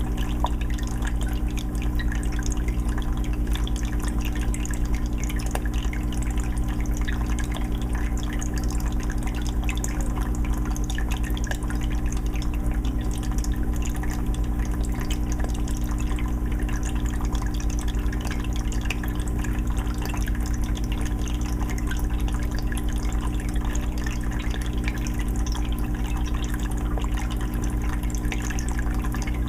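Aquarium water filter running: a continuous patter of trickling, dripping water over a steady low hum.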